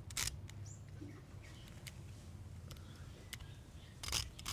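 Handling noise from a Helios 44M lens: a sharp click just after the start and a longer, louder clicking scrape about four seconds in, with a few light ticks between them. Faint bird chirps are heard in the background.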